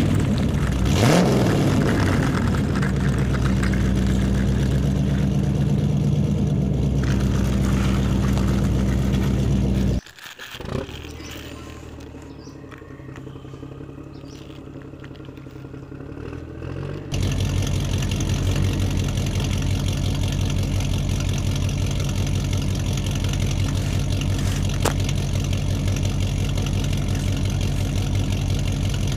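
An engine running steadily, revving up about a second in. It cuts off sharply about ten seconds in, a quieter stretch follows, and the steady engine sound returns about seventeen seconds in.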